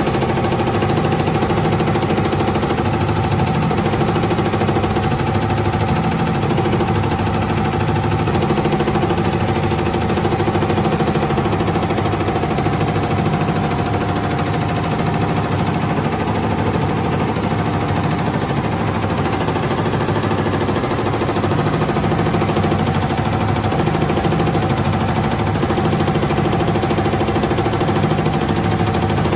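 Tajima multi-head computerized embroidery machines stitching a logo into T-shirts: a steady, loud mechanical clatter of the needle bars driving through the fabric, with several heads running at once.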